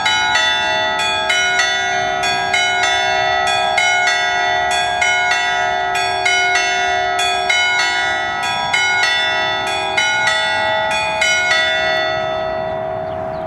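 A set of nine bronze church bells (eight plus a semitone bell, tuned in A, cast by the Capanni foundry) playing a Bolognese allegrezza, a quick run of strokes about three a second. The strokes stop about twelve seconds in and the bells ring on, fading.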